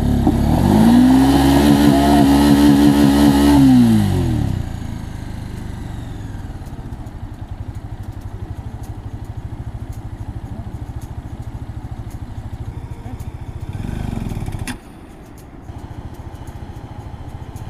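Motorcycle engine, the Jawa 42 2.1's single-cylinder, revs up and back down over the first few seconds, then settles to a steady idle. About 15 s in, the sound drops away abruptly after a sharp click.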